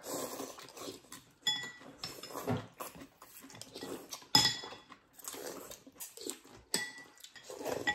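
Ceramic spoons and chopsticks clinking against porcelain soup bowls, with phở noodles being slurped between the clinks. A few sharp ringing clinks stand out, the loudest about four and a half seconds in.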